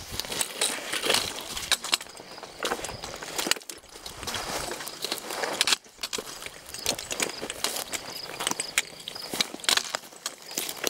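Footsteps crunching and scuffing over rocky, gravelly ground with dry grass, in uneven steps.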